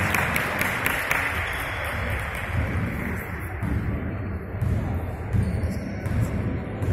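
Basketball dribbled on a hardwood gym floor in an echoing sports hall, with players' voices loudest in the first second.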